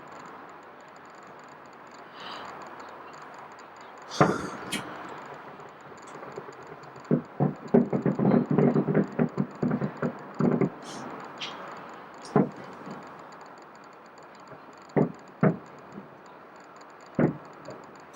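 Aerial fireworks bursting: a couple of booms, then a rapid string of bangs lasting about three seconds, then scattered single booms.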